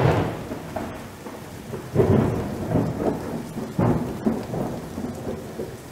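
Thunder rolling over steady rain, with three low rumbles swelling and fading over a few seconds.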